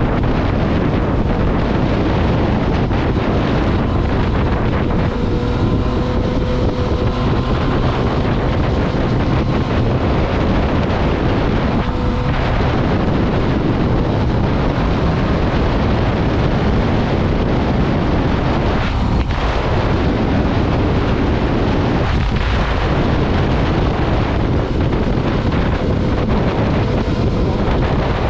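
Motorcycle riding along with its engine running under load and heavy wind noise on the microphone. The sound dips briefly a few times.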